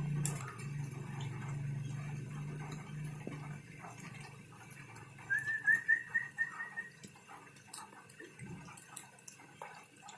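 A bird gives a quick run of about eight short, rising, whistled chirps about five seconds in, with scattered rustling and clicks. A low steady hum fades out in the first few seconds.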